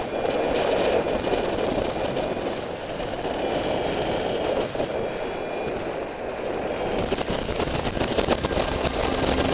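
Wind rushing over the microphone of a camera carried on a paraglider in flight: a steady rough noise.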